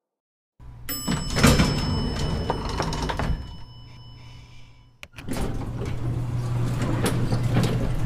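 Lift doors sliding in a small space over a steady low hum. A bell-like chime starts about a second in and fades away. About five seconds in there is a click, then the doors run and strike near the end.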